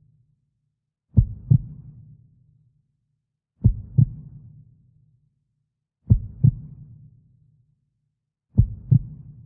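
Slow heartbeat sound effect: paired low thumps, lub-dub, repeating about every two and a half seconds, four beats in all.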